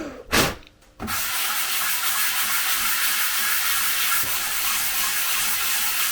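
Compressed air blowing dust off a sanded 3D-printed part: a short puff, then a steady hiss of air from about a second in.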